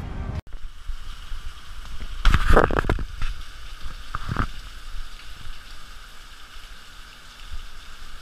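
Handling noise from a handheld camera: a few brief rubbing knocks about two to three seconds in and once more around four seconds, over a steady hiss.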